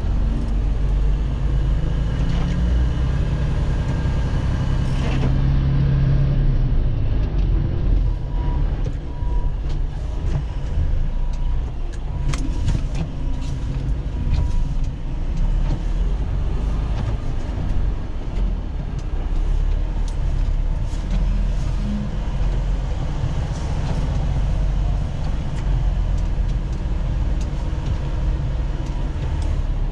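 Semi-truck's diesel engine running as the truck moves slowly, a steady low rumble with a few scattered clicks.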